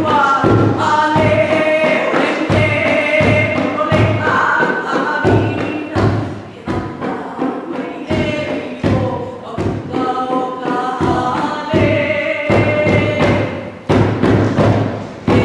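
Hawaiian hula chant sung by voices in unison, with regular low drum beats marking the time. Brief dips in the voices come about 6.5 s and 14 s in.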